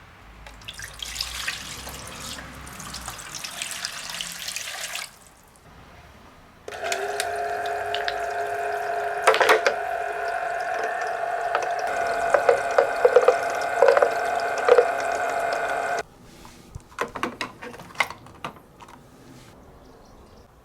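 Water pouring and running along a toy somen water slider for about five seconds. Then a steady electric hum, typical of the slider's battery water pump, runs for about nine seconds with plastic balls clicking and clacking over it, and after it cuts off suddenly, scattered clicks of balls go on.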